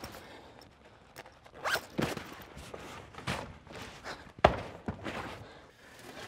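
Footsteps and scuffling on a floor with clothing rustling, several separate steps, and one sharp thud about four and a half seconds in.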